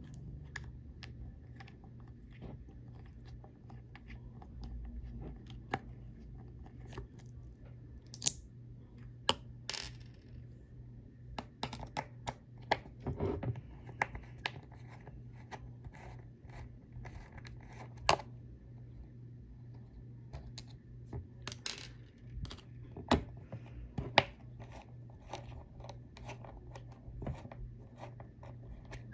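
Small screwdriver working the cover screws out of a Western Digital Caviar 31600 hard drive's metal case: scattered clicks and scrapes of metal on metal, with a few sharper clicks, over a steady low hum.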